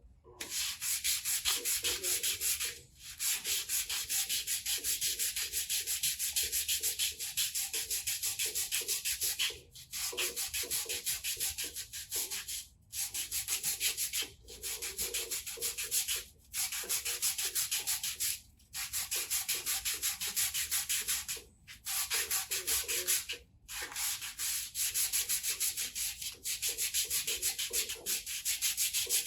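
Sandpaper sanding the aluminium exhaust muffler in rapid back-and-forth strokes: a dense scraping hiss that stops briefly every few seconds and starts again.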